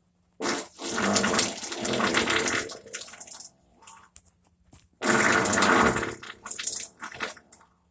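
Human farts: a long sputtering one of about two seconds starting shortly in, then after a pause a shorter one of about a second, with a few brief spurts around them.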